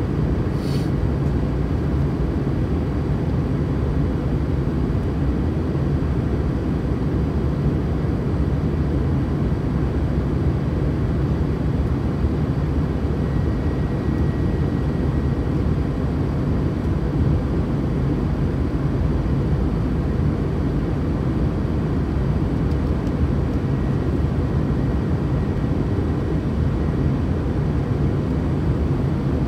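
Steady low rumble of an Airbus A320 airliner's engines and airflow, holding an even level.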